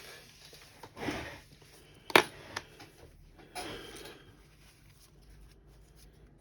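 Small tools and parts being handled on a work surface: a brief rustle, a single sharp click about two seconds in, then another short rustle.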